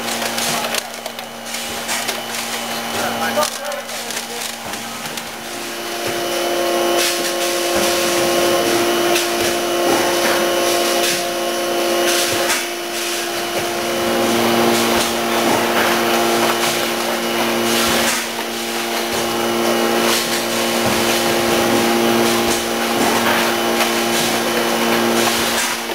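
MDC horizontal form-fill-seal packaging machine running as it forms, fills and seals rigid HIPS trays. A steady mechanical hum with several held tones grows louder about six seconds in, broken by repeated clicks and knocks as the stations cycle.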